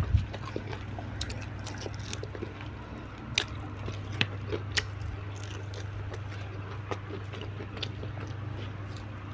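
A person chewing and biting into a meal of tilapia and raw vegetables, with scattered sharp crunches and mouth clicks over a steady low hum.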